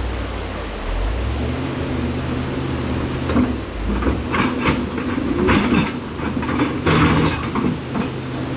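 Excavator's diesel engine running and picking up speed about a second in, with a run of heavy clanking and scraping in the middle from the machine working on stones and rubble.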